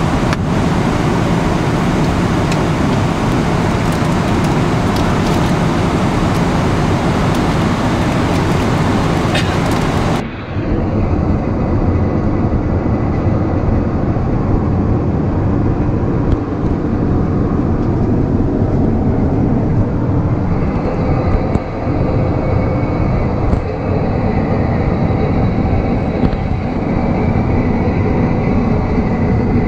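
Steady airliner cabin noise of a Boeing 777-300ER in cruise: an even rushing drone of airflow and engines. About ten seconds in, the tone abruptly turns duller but the drone goes on, with a few light knocks.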